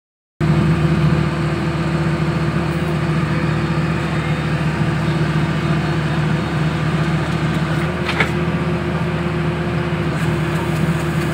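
Engine of a horizontal directional drilling rig running steadily with a constant low hum. A brief click comes about eight seconds in.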